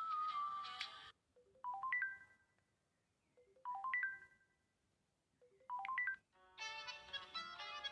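LG G2 mini ringtones previewed one after another. A whistle-like melody cuts off about a second in. A short chime of quickly rising notes then plays three times, about two seconds apart, and a fuller tune of many notes starts near the end.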